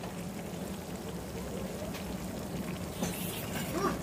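Small-fish curry with potatoes simmering and sizzling in a steel kadai on a gas stove while a steel spatula stirs it, with a steady low hum underneath.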